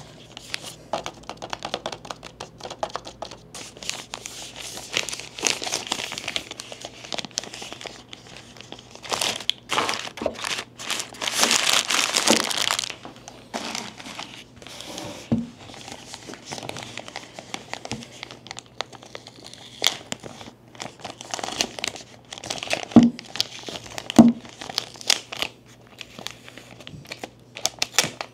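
Packaging being handled during an unboxing: crinkling and rustling throughout, with a longer, louder tearing stretch about twelve seconds in and a few sharp knocks in the second half.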